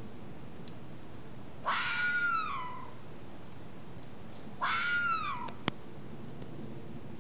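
Two drawn-out, meow-like animal calls about three seconds apart, each about a second long, rising then falling in pitch. They are put forward as the red fox's alarm call. A sharp click follows just after the second call.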